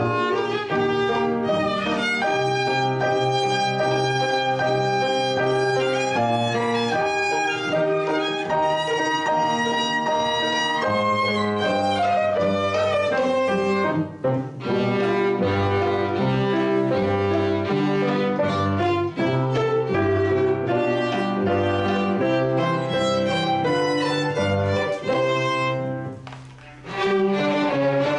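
Youth string orchestra of violins and cellos playing a piece together, with a brief break about halfway through and a short pause near the end before playing resumes.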